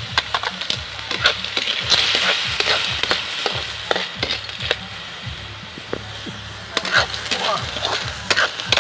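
Shellfish in their shells being stirred in a hot pan: many sharp clicks and clatters of shell against the pan over a steady sizzle.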